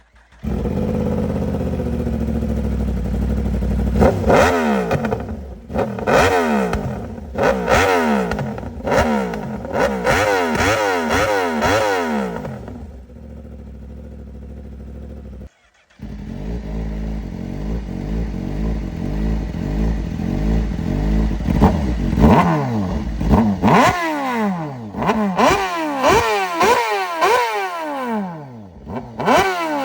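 Inline-four superbike engines with aftermarket exhausts, revving up and down again and again in quick succession. Steadier low running comes between the revs. Partway through, the sound cuts sharply to a second bike or pass.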